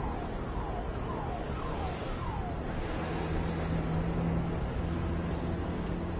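Street traffic rumble with an electronic siren sounding a falling chirp about twice a second, which stops about two and a half seconds in; after that a steady low engine hum is heard.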